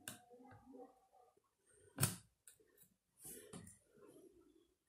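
Small side cutters snipping off the excess of a thin wire jumper soldered onto a circuit board: one sharp snip about two seconds in, with lighter clicks and handling noises around it.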